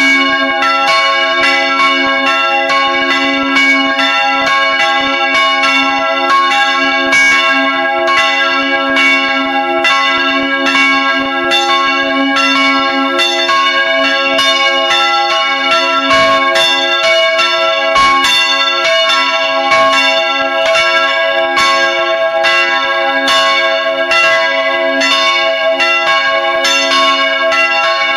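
Swinging church bells ringing together at close range in the belfry, their clappers striking in a dense, overlapping run of loud strokes over a continuous ringing hum.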